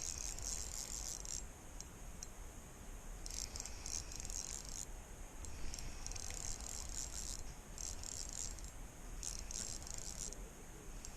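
Spinning reel being cranked to bring in a hooked fish, its gears whirring and rattling in repeated turns of a second or so, with short pauses between.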